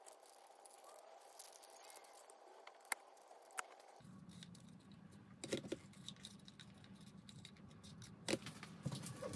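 Faint handling sounds of punched cardboard game pieces being folded and fitted together: scattered soft clicks and taps, with a few sharper clicks. A low hum comes in about halfway through.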